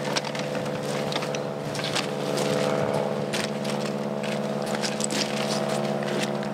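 A steady engine drone holding one pitch throughout, with scattered light clicks and scrapes of handling on gravel.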